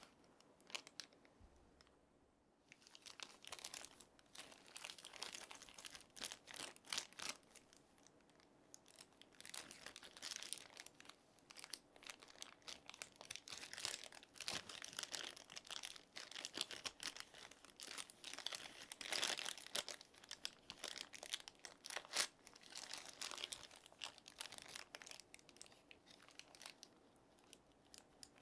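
Packaging being handled and unwrapped: crinkling and rustling in irregular bursts, with some tearing.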